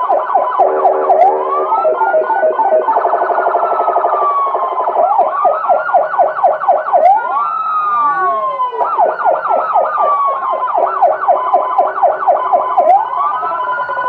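AS820 200-watt electronic siren sounding loudly through its speaker, with two tones at once: a slow rising-and-falling wail laid over fast repeating yelp sweeps of a few a second, the pattern changing several times.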